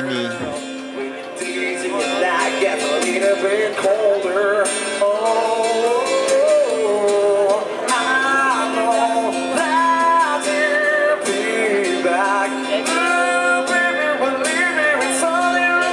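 A man singing a slow song to acoustic guitar.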